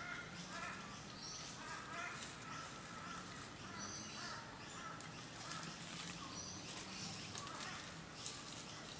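Birds chirping and calling in short repeated notes, over scattered scratching and rustling of dry leaf litter as Australian brushturkeys dig and kick at their nest mound.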